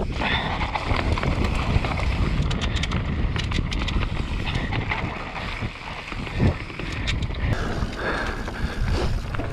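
Radon Jab enduro mountain bike descending a dirt trail: wind buffeting the microphone over the steady rumble of tyres on dirt, with the bike rattling and knocking over bumps.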